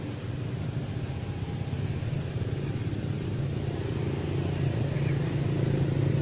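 Steady low hum of a motor vehicle's engine running, growing gradually louder.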